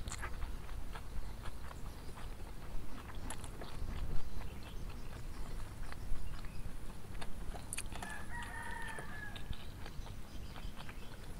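Soft wet clicks and smacks of eating by hand: fingers mixing rice and tempe in a stone bowl, and chewing. A rooster crows once, about eight seconds in, lasting about a second.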